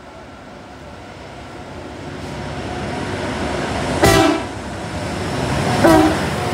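Two SSR diesel locomotives, SSR 102 and SSR 101, running at the head of a freight train as it approaches and passes, the engine rumble growing steadily louder. The horn sounds two short blasts, about four and six seconds in, the first slightly longer.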